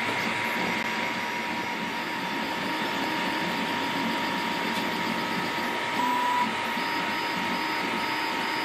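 MakerGear M2 3D printer running a print: stepper motors and cooling fans give a steady whir with a thin constant whine, and a brief louder tone about six seconds in.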